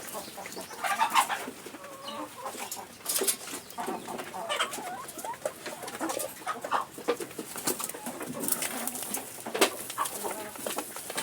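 Chickens clucking and calling in a coop, with many short sharp clicks and taps mixed in, such as birds pecking at feed that has just been put out.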